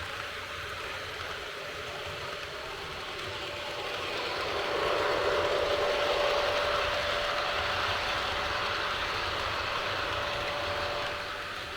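HO-scale model freight train running along the track, with a steady whine over the rolling of the wheels on the rails. It grows louder about four seconds in, holds for several seconds as the train comes close, then eases off.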